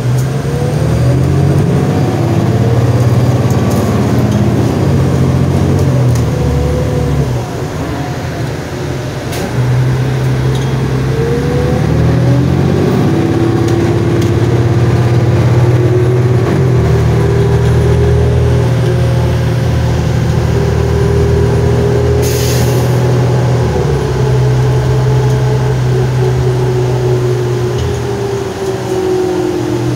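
Cummins ISL 8.9-litre diesel and Allison automatic transmission of a 2007 New Flyer D40LF transit bus, heard from inside the bus as it drives. The engine's pitch climbs slowly and changes in steps several times, with a short dip in loudness about eight seconds in. A brief hiss comes about two-thirds of the way through.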